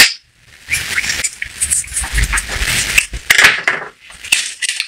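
Hands handling a metal engine main bearing cap and paper towel on a worktop: an irregular rubbing and scraping, with a few light knocks near the end.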